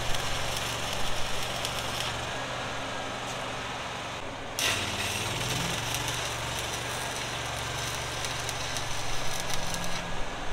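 Stick welding arc crackling as tack welds are laid on zinc-plated steel. The arc breaks off briefly about four and a half seconds in, strikes again and stops near the end. An engine runs steadily underneath.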